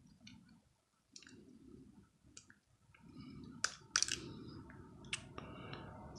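Small screwdriver and screws clicking against a spinning reel's metal housing as it is handled during reassembly: a handful of sharp, scattered clicks over a low handling rustle.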